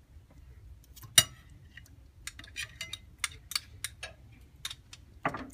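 A sharp metal clink about a second in, then scattered light clicks and taps: glazed bacon-wrapped onions being handled on a toaster oven's metal tray and wire rack and on a plate.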